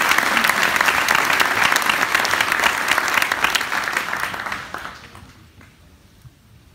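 Audience applauding in a hall, the clapping dying away about five seconds in.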